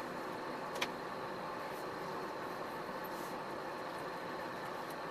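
Iveco Stralis truck's diesel engine running steadily at low speed while the truck is manoeuvred through a tight turn, with one sharp click about a second in.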